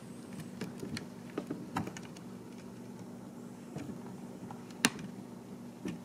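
Scattered small plastic clicks and wire rustles as hands fasten a cable tie around the wiring and plastic tube on a bidet seat's water-heater tank, with one sharper click about five seconds in.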